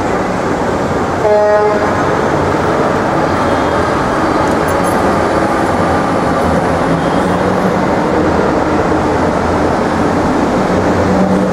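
Loud steady rumble of passing vehicle noise, with a short pitched tone about a second in.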